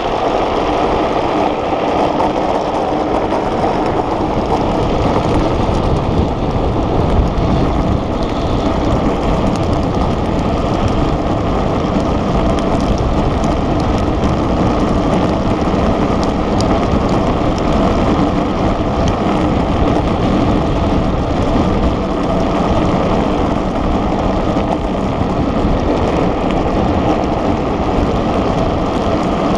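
Steady rush of wind over the camera microphone mixed with the roll of the speed trike's hard wheels on asphalt as the unpowered gravity trike runs downhill at speed.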